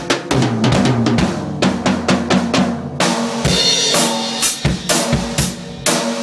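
Rogers drum kit played in a solo: a fast run of drum strokes for about three seconds, then a cymbal crash and a slower, steadier beat of bass drum and snare.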